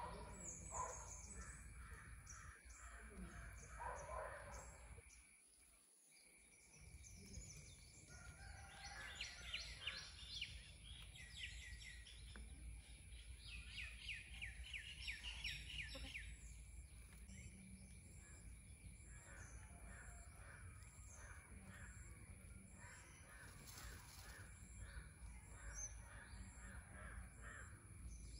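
Wild birds calling, faint: two quick runs of rapid, repeated chattering notes, each about three seconds long, a third of the way in and again around the middle, with softer calls scattered through the rest.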